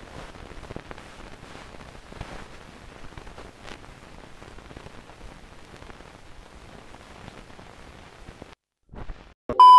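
Faint, even crackling hiss like static, with scattered small ticks. It cuts out briefly near the end, and then a loud, steady beep cuts in just before the end.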